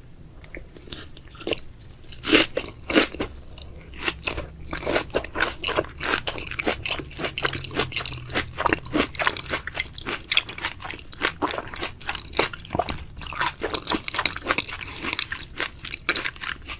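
Close-miked eating of raw tuna: rapid biting and chewing, many short sharp mouth sounds a second, starting about two seconds in.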